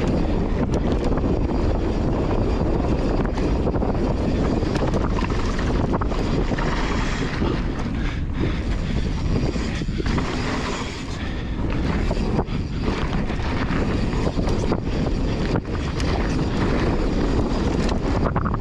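Mountain bike riding fast down dry dirt singletrack: steady wind rush on the microphone, with tyre noise and many short knocks and rattles from the bike over bumps.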